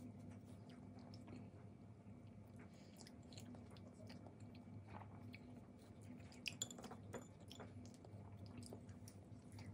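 Faint clicks and rustles of chopsticks and lettuce leaves as a lettuce wrap of boiled pork and noodles is put together, over a low steady hum; a few sharper clicks come about six and a half seconds in.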